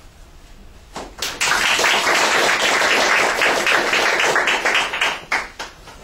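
Audience applause at the end of a talk: a few claps about a second in, then a full round of clapping that dies away near the end.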